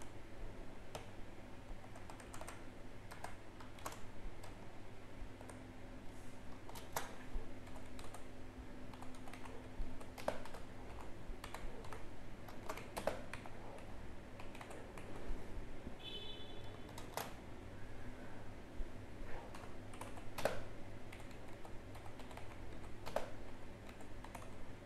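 Typing on a computer keyboard: irregular bursts of keystrokes with short pauses between them, over a steady low hum.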